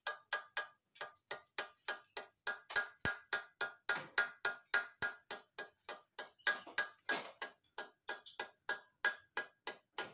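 Steady hammer blows on a cylinder liner in a bare Isuzu Panther diesel engine block, about three or four a second, each with a short metallic ring. The worn liners are being knocked free so they can be turned around.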